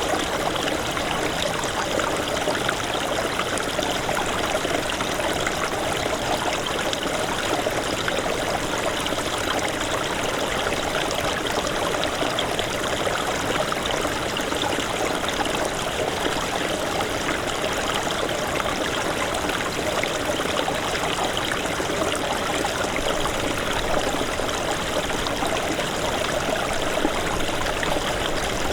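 Small snowmelt mountain stream babbling and trickling over stones in a steady, continuous flow.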